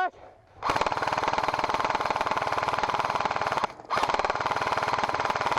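G&P M249 SF airsoft electric gun firing full-auto: two long bursts of very rapid, even clicking from the gearbox and shots, with a short break a little past halfway.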